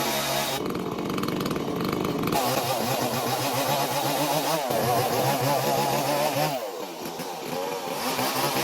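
Stihl two-stroke chainsaw running at high revs, its pitch rising and falling as it is revved and eased off, with a drop in speed about six and a half seconds in.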